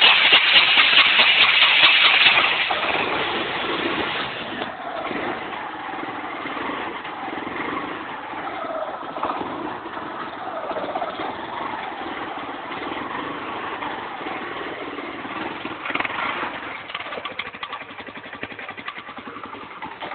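1998 Kawasaki Bayou ATV's single-cylinder four-stroke engine on a cold start: it fires abruptly and runs loudest for about two seconds, then settles to a steady idle, briefly louder again about sixteen seconds in.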